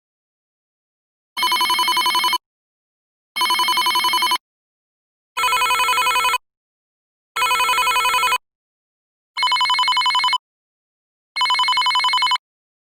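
An electric bell ringing in a fast trill, in the manner of an old telephone ringer: six rings about a second long each, one every two seconds, with silence between them.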